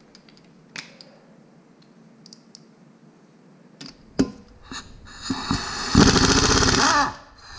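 Earthquake impact wrench on a bolt in a trailer's brake drum hub: a few small clicks and a knock as the socket is fitted, then about five seconds in the wrench spins up and hammers rapidly for about two seconds before stopping.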